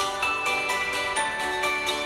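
Instrumental background music: sustained pitched notes over a light, steady beat.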